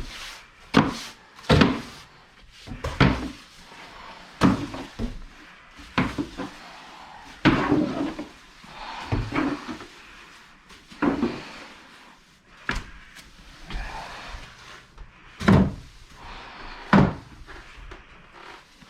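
A series of sharp knocks and thumps, about a dozen spread unevenly, as household objects are picked up, moved and set down during sweeping.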